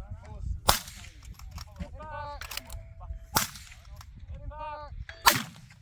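Three shots from an Accuracy International AT .308 precision rifle with a muzzle brake, sharp cracks about two and a half and then two seconds apart.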